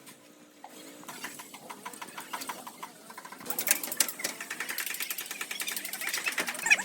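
Rapid, rhythmic metallic clattering from a power tool at work on car bodywork. It starts faintly about a second in and grows much louder about halfway through.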